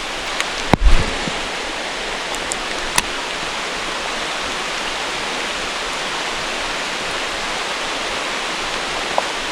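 Steady rushing noise of rain and flowing creek water, with a sharp knock about a second in and a faint click near three seconds.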